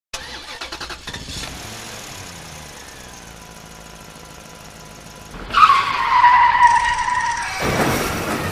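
Car sound effects: a steady engine-like running noise, then about five and a half seconds in a loud tyre screech that sags slightly in pitch, followed near the end by a heavy impact noise.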